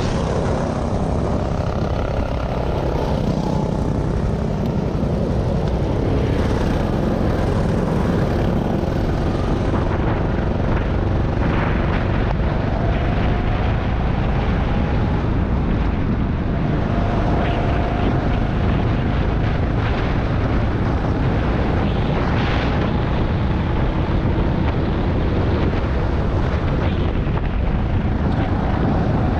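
Rental go-kart engine running hard under race load, heard from a camera mounted on the kart, with a steady dense drone whose pitch rises and falls a little as the kart goes through the corners.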